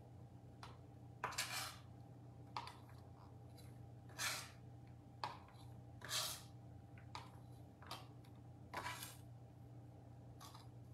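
A flat blade scraping finely chopped broccoli across a plastic cutting board and into a glass measuring cup: about seven short, faint scrapes a second or two apart.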